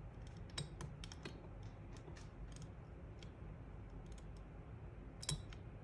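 Faint, irregular small clicks and ticks of a thin Allen key probing inside a Browning X-Bolt's trigger assembly, working at the trigger spring, with one louder click about five seconds in.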